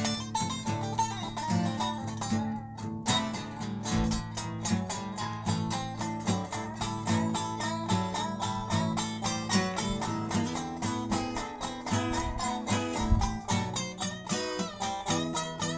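Blues band playing an instrumental passage, guitar lines over a steady beat.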